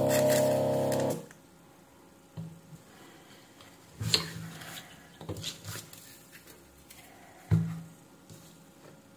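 Electric desoldering gun's vacuum pump humming steadily, then cutting off about a second in. Then light clatter and taps of a circuit board and small parts handled on a workbench, with sharper knocks about 4 and 7.5 seconds in.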